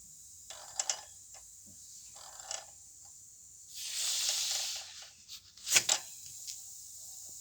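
Front wheel of a Yamaha T-Max 500 scooter turned by hand, giving a faint rubbing whir with light ticks. There is a longer hissing rush about four seconds in and a sharp click near the six-second mark.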